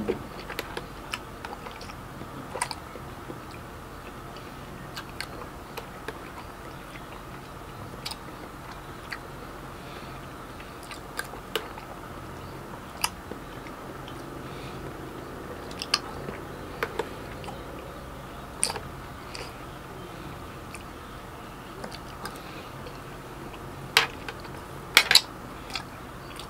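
A person chewing and biting food close to the microphone, with scattered short mouth clicks and smacks over a steady low background hum. A few louder clicks come near the end.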